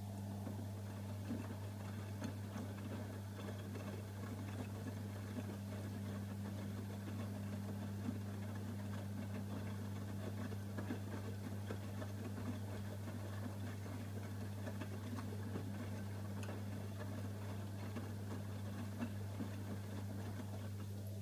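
AEG Öko-Lavamat 85739 washing machine's motor running for about twenty seconds with small irregular knocks, over a steady low hum, and stopping just before the end.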